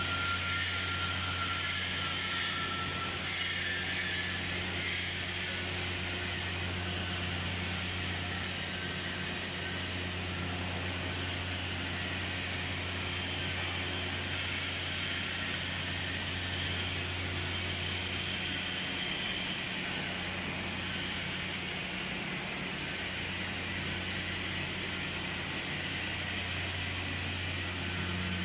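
Steady hum and hiss of TIG welding stainless steel, a flange joined to a 2"x1" swage nipple. The low electrical hum runs unbroken under an even hiss.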